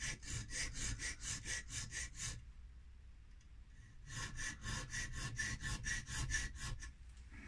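Thin knife file rasping across a pepper mill's worn metal grinding wheel in quick short strokes, about five a second, deepening its grooves to sharpen it. The strokes stop about two and a half seconds in and resume a second and a half later.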